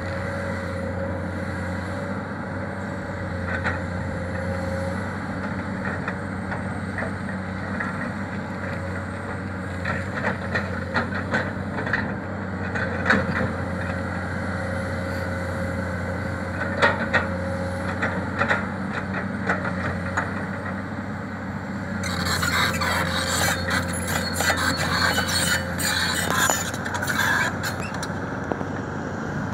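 Komatsu PC200 hydraulic excavator's diesel engine running steadily, with a thin whine that comes and goes. The bucket scrapes and clatters through earth and stones, loudest for several seconds about three-quarters of the way through.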